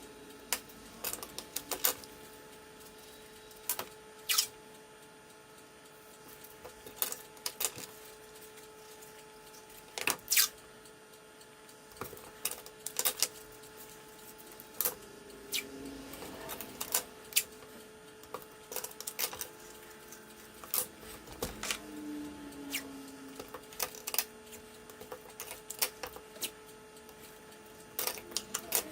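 Scattered light clicks and taps from small objects being handled, at irregular intervals, over a steady hum.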